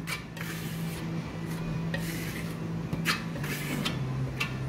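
Metal trowel scraping and rubbing decorative silk-effect paint across a panel in short repeated strokes, over a steady low hum.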